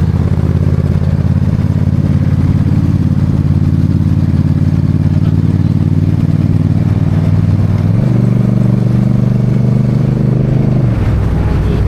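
A vehicle engine running steadily close by with a low, even drone. Its pitch steps up about eight seconds in and drops back a few seconds later, as with a change of throttle.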